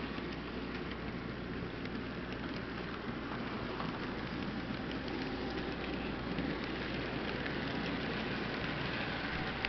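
HO scale freight cars rolling past on model track: a steady, even rattle and rumble of wheels on the rails, with a few faint clicks.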